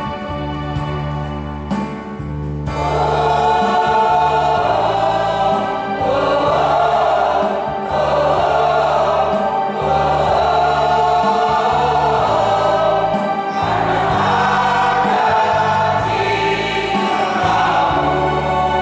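Mixed church choir singing a hymn over steady sustained instrumental accompaniment. The voices come in strongly about three seconds in, after a brief accompaniment-only passage.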